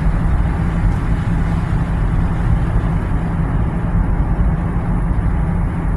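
Steady road and engine noise heard inside a moving vehicle's cabin, its tyres running on an unplowed, snow-covered road.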